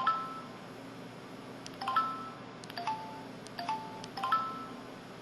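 Samsung SCH-E250 mobile phone playing a built-in electronic chime tone: a quick figure of two or three short pitched notes, each starting with a click, repeated about five times with gaps between.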